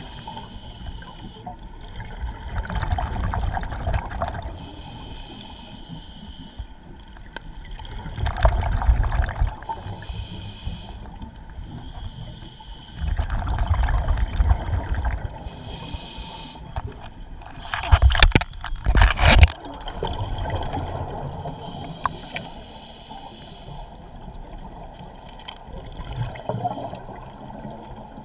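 Scuba diver breathing through a regulator underwater. A hiss of inhalation alternates with a gurgling rush of exhaled bubbles, in a cycle of about five seconds, and one exhalation about two-thirds through is louder and comes as a double burst.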